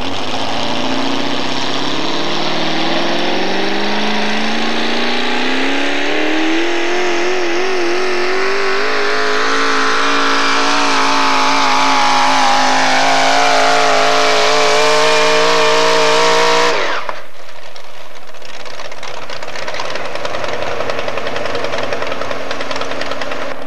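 Modified four-wheel-drive pull truck's engine under full throttle as it pulls the sled, its pitch climbing steadily for about sixteen seconds. It cuts off suddenly, leaving a quieter, steady engine rumble.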